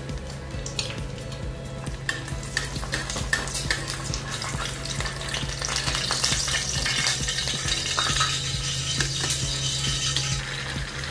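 Cured pork and eggs sizzling in frying pans, with a metal spatula clicking and scraping against the pan. The sizzling grows louder about six seconds in and drops back near the end.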